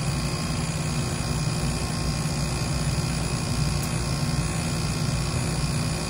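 Trane heat pump outdoor unit running steadily: a low compressor hum with the condenser fan's airflow over it.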